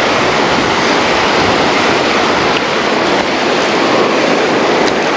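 Ocean surf washing on a beach, with wind blowing on the microphone: a loud, steady rushing noise.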